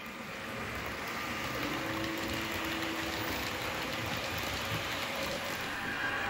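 Model train running on layout track: a steady rolling rumble of wheels over the rails, getting a little louder about a second in as it comes closer.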